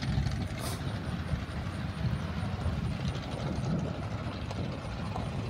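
Low, steady rumble of vehicle engines running at a drag strip, with no car launching or passing.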